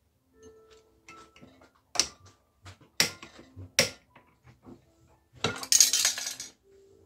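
A sparkling-wine bottle being opened with a metal tool at its neck: a few sharp clinks and clicks, then the loudest part, a noisy rush lasting about a second near the end.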